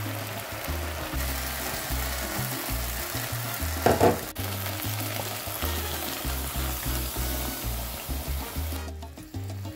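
Tomato-based sauce frying and sizzling in a wok, with a brief louder burst about four seconds in as diced bell peppers go into the pan. A bass line of background music runs underneath, and the sizzle drops away shortly before the end.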